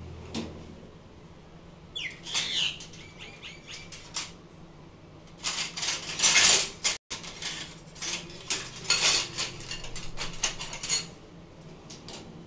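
Metal kitchen utensils clinking and rattling against each other in a dish rack as a hand rummages through them, in three bouts of clatter with short pauses between.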